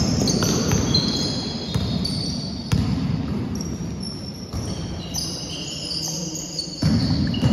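Basketball being played on a sports hall court: trainers squeak on the floor in many short, high squeals of shifting pitch, and the ball bounces and knocks a few times. It all rings in the large hall.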